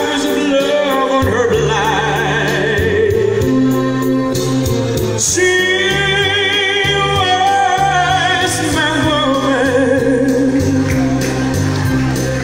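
A man singing into a handheld microphone over a backing track with a stepping bass line; the voice wavers with vibrato on long held notes.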